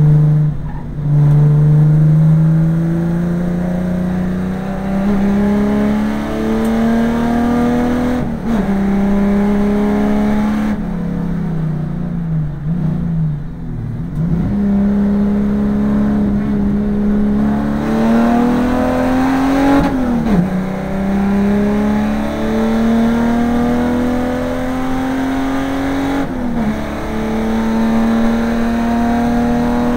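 Holden VN Commodore saloon race car engine heard from inside the cabin at racing speed. The revs climb through the gears, with sharp drops at gear changes about 8 seconds, 20 seconds and 26 seconds in. They fall in steps between about 11 and 14 seconds in, as the car brakes and downshifts for a corner.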